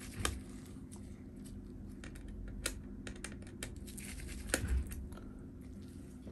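Light clicks, taps and rustles of gloved hands and small tools handling an opened MacBook Air, with a louder knock about four and a half seconds in, over a steady low hum.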